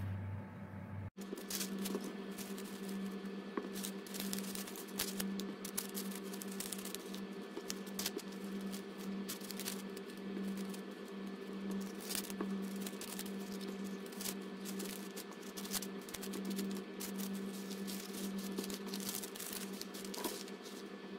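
Kraft-paper cones and foil-wrapped chocolates being handled and set down: irregular crinkling, rustling and light tapping, over a steady low hum.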